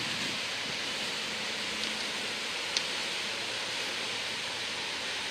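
Wakeboard boat running past at speed: a steady rush of water from its hull and wake, with a faint low engine hum underneath. A single sharp click nearly three seconds in.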